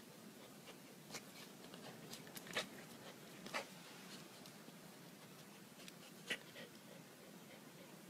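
Faint, short scratches and clicks of a bull terrier puppy's claws on brick paving as it steps and paws at a small crab, a handful of them scattered a second or more apart.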